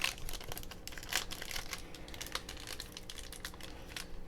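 Trading cards and their packaging being handled: a quick run of small clicks and taps with some crinkling of plastic wrap.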